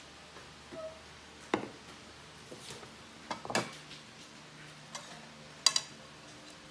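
A handful of sharp clinks and knocks, the loudest a quick double near the end, over a faint steady hum.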